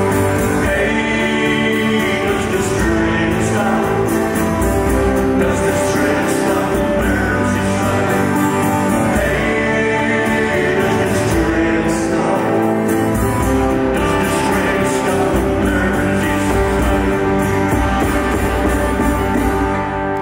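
A man singing over a strummed acoustic guitar in a live folk performance, with long held notes. The song comes to its end right at the close.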